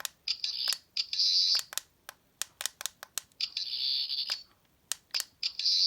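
Toy 13th Doctor sonic screwdriver playing its electronic sound effect in the lit-up mode: several short high whirring bursts, with many sharp clicks in between.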